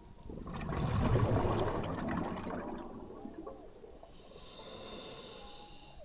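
A scuba diver breathing out through the regulator: a burst of bubbles gurgling for about two and a half seconds, followed near the end by a softer hiss with a few steady high tones.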